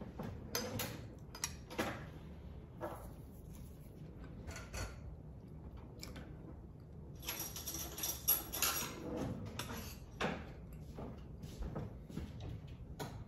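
Cutlery clinking and scraping against a plate or bowl during a meal: scattered light clicks, with a busier clatter about seven to nine seconds in.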